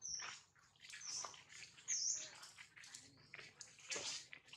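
Birds chirping: short high calls repeated several times, over a scatter of soft clicks and rustles.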